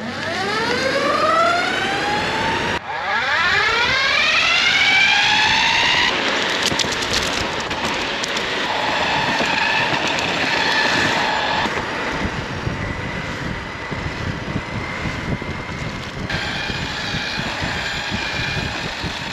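Meepo Hurricane Ultra electric skateboard's gear-drive motors whining as the board accelerates. The pitch rises twice in the first six seconds, then settles into a steady whine over a rushing noise, with a few abrupt breaks.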